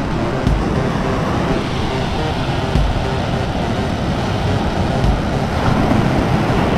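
Steady rumble of wind and breaking surf on the microphone, with a few heavier low thumps from wind gusts.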